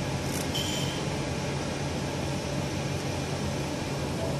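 Steady machine hum with a fan-like hiss, and a brief faint rustle and short high tone about half a second in.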